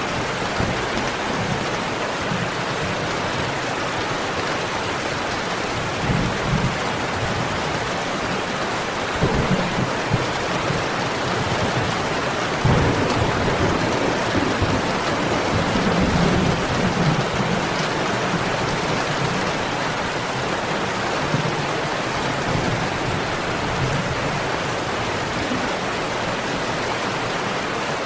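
Steady heavy rain falling, with low thunder rumbling now and then, strongest around the middle.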